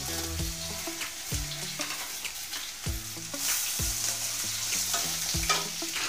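Diced potatoes sizzling in hot mustard oil in an aluminium kadai, stirred with a spatula that knocks and scrapes against the pan a few times.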